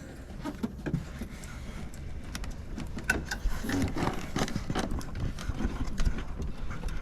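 Hands working on a tractor cab's console: irregular clicks and knocks of plastic trim and wiring plugs being handled, over a steady low rumble.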